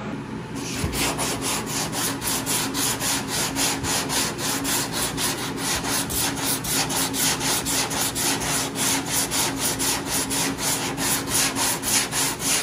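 Hand sanding block with sandpaper worked back and forth over filler primer on a 1979 VW Bus's steel door, in quick, even strokes starting about half a second in: dry block sanding to level the primer and show up low spots.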